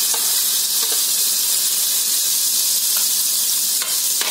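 Green pea paste sizzling in hot ghee in a pan, a steady hiss, with a few light scrapes and taps of the utensils against the pan.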